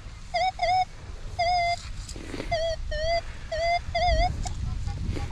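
Metal detector sounding a target: a series of about seven short beeps, several wavering in pitch, as the coil is swept back and forth over something buried.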